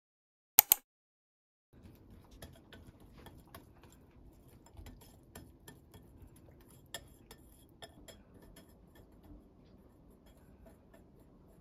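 Two sharp clicks in quick succession, then, after a pause of about a second, a wire whisk beating a wet mixture in a glass bowl, its wires ticking irregularly against the glass.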